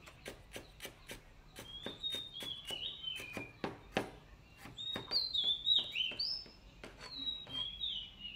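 Steady chopping of a cleaver through lemongrass on a plastic cutting board, about three to four quick chops a second. From about one and a half seconds in, a songbird sings over it in phrases of short falling chirps, loudest about halfway through.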